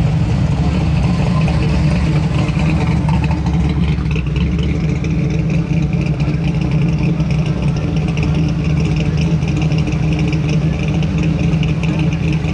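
Engines of classic cars and hot rods running at a slow crawl, a steady, deep exhaust note with no hard revving.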